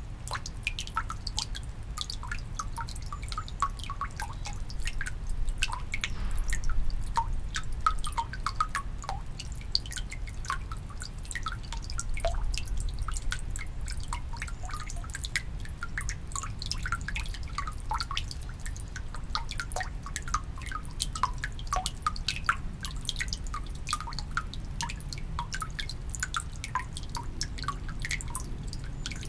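Water dripping into the stone basin of a Shinto shrine's temizuya (purification fountain): quick, irregular drops, several a second, over a low steady rumble.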